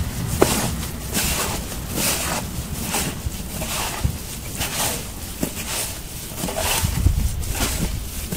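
Gloved hands kneading raw çiğ köfte mixture (bulgur, tomato paste and spices) in a steel bowl: a rhythmic rustling squish with each push, about once a second, over a low wind rumble on the microphone.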